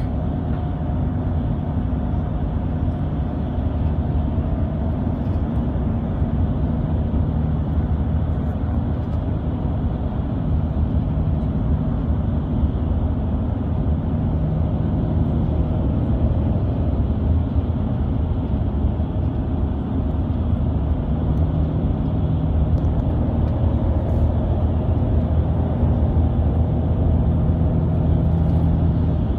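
Mercedes-Benz Tourismo coach on the move, a steady low drone of engine, driveline and tyre noise heard from inside the passenger cabin.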